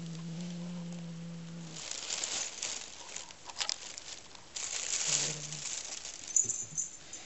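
Domestic cat growling, a low steady growl for about two seconds and again briefly near the five-second mark, guarding a new toy mouse as if it were its own prey. In between, a plastic shopping bag crinkles and rustles loudly as the cat rummages in it.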